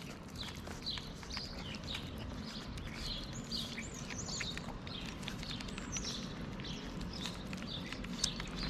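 Cats chewing and lapping wet cat food from a foil tray, giving small wet clicks and smacks, while small birds chirp about twice a second.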